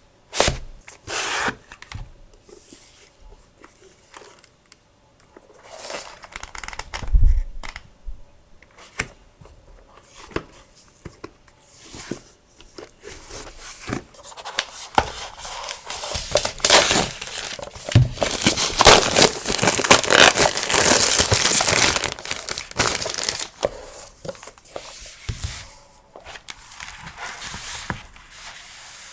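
Paper and packaging being handled close up: crinkling, rustling and tearing, with scattered sharp taps and clicks. It grows denser and loudest from about fifteen to twenty-three seconds in, then thins out again.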